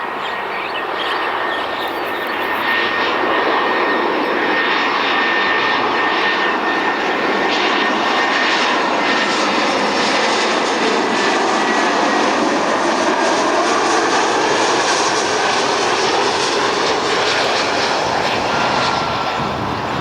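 Jet airliner passing low overhead on landing approach: a broad engine roar that swells about two seconds in, holds, and eases off near the end, with a thin whine that slowly drops in pitch as it goes by.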